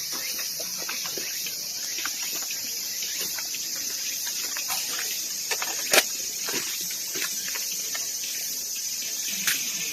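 Steady high-pitched insect drone, with scattered small ticks and a sharp click about six seconds in and another near the end.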